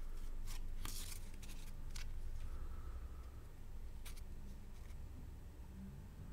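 Cardboard trading cards being handled in a small stack: a quick run of short papery scrapes and flicks as a card is slid from the front to the back, then one more flick about four seconds in. A steady low hum lies underneath.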